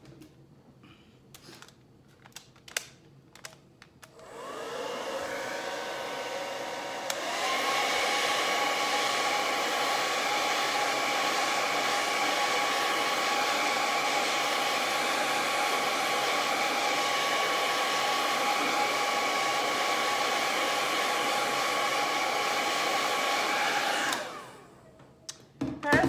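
Small hand-held hot-air dryer drying freshly applied chalk paste. It is switched on about four seconds in at a lower setting, then steps up a few seconds later to a louder, steady whir with a motor whine. It winds down near the end. A few handling clicks come before it starts.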